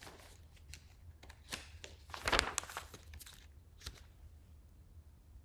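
Paper rustling and handling noises from working in an activity book: a few short crinkles and clicks, with a louder rustle about two and a half seconds in.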